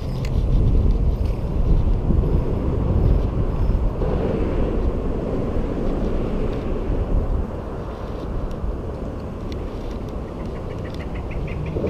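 Low rumble of traffic crossing the concrete road bridge overhead, heavier for the first seven seconds and then easing. Near the end comes a faint quick ticking of the spinning reel being cranked.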